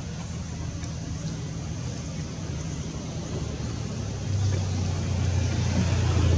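Low, steady engine hum of a motor vehicle, growing louder about four seconds in.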